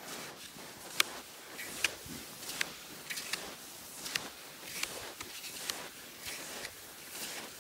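Steady crunching steps on wind-crusted snow, about one every three-quarters of a second.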